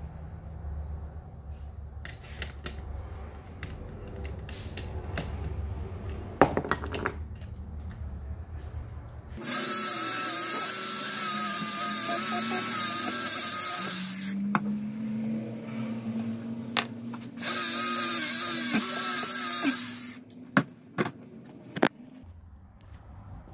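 Angle grinder with a wire wheel stripping paint off a steel hydraulic cylinder. It runs with a high whine in two passes, one about nine seconds in and a shorter one about seventeen seconds in, with the motor spinning between them. Before the first pass there are light clinks of handling, and a few sharp clicks after the second.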